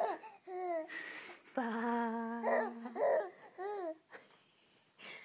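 An adult's sing-song voice drawing out "papá" to a baby. Short rising-and-falling baby coos come between the words.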